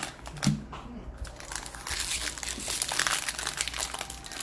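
Crinkling of a plastic-foil trading-card pack wrapper being handled, growing denser about two seconds in.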